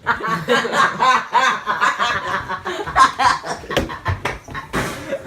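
People laughing and snickering, in quick, voiced bursts.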